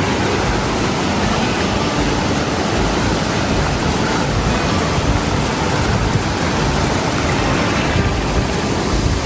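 Steady, loud rush of a waterfall pouring into a rock pool.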